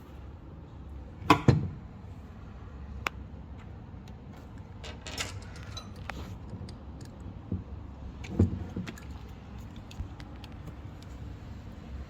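Scattered clicks and knocks over a low steady hum, with two loud knocks close together about a second in and another cluster a few seconds before the end.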